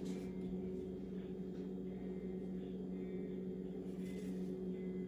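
A steady low hum that holds one pitch, with a few faint clicks and taps.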